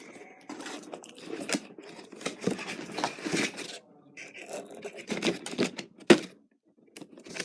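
Cardboard and plastic packaging rustling and scraping in irregular strokes as a toy RC car is worked out of its box, with a sharp click about six seconds in.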